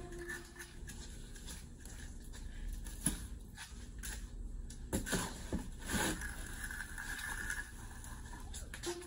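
Shovel scraping and chopping through concrete mix in a wheelbarrow, irregular gritty scrapes with a few sharper knocks.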